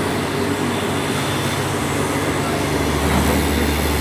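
Steady low drone of heavy diesel engines on a car ferry, with trucks boarding. About three seconds in, a deeper engine hum comes in and holds.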